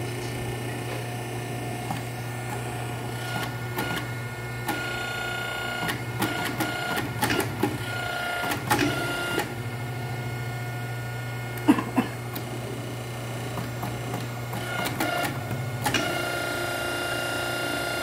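Electric-hydraulic hose crimping machine running: a steady motor-and-pump hum, with a higher whine that comes and goes in stretches as it works. Two sharp metal clanks come about two thirds of the way through.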